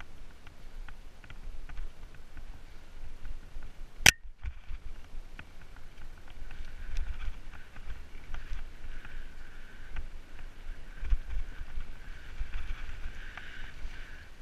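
Mountain bike ridden fast down a leaf-covered dirt singletrack, heard from an action camera mounted on the rider or bike: an uneven low rumble of the bike and tyres over the ground, with scattered clicks and rattles and one sharp loud click about four seconds in. A faint higher whir joins from about six seconds in.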